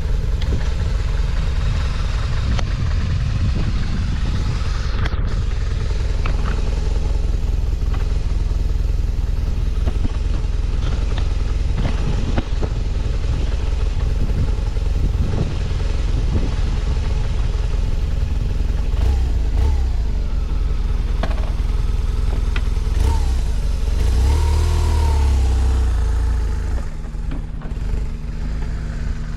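BMW R1200R's boxer-twin engine running steadily, revving up and back down near the end before settling to a quieter idle. The seller says it runs with no abnormal noise and revs up well.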